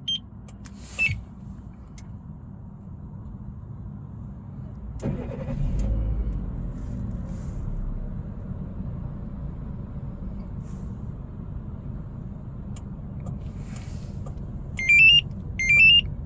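A Daewoo Matiz Creative's small three-cylinder engine is remote-started by a two-way remote start system. Two short electronic beeps sound first. About five seconds in, the engine cranks and catches, then settles into a steady idle. Near the end, three loud rising electronic chirps come from the remote start system.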